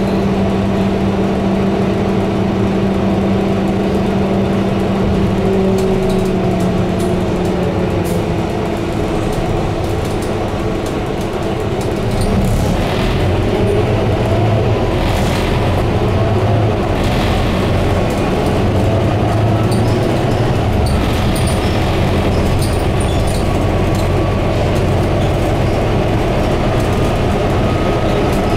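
Scania K230UB double-decker bus, heard from on board. Its diesel engine runs with a steady low hum for the first several seconds, then it pulls away and accelerates, and the low rumble grows with engine and drivetrain tones gliding in pitch.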